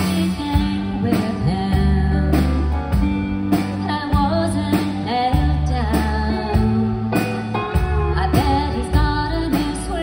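A live country band playing: a woman singing lead over a drum kit, electric bass, fiddle and keyboard, with regular drum beats.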